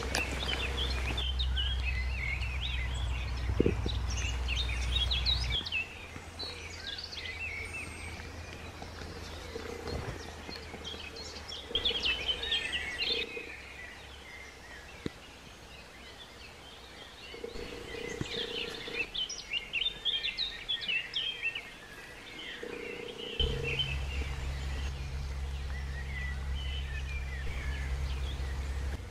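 Woodland birdsong: several small birds chirping and singing through the whole stretch. A low steady rumble sits underneath for the first few seconds and again near the end.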